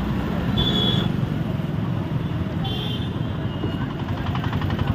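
Street traffic noise: a steady rumble of passing vehicles, with two short high-pitched beeps about two seconds apart.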